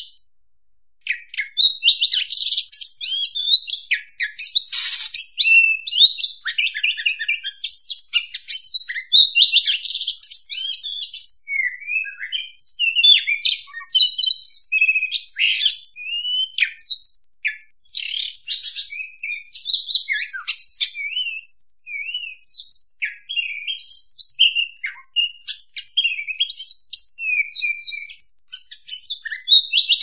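Oriental magpie-robin (kacer) singing a long, varied song of quick whistles, chirps and trills, starting about a second in.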